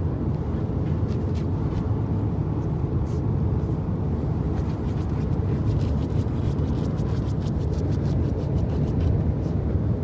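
A dog's claws scratching and digging at a pillow: a run of short, rapid scratches, thicker in the second half, over a steady low rumble.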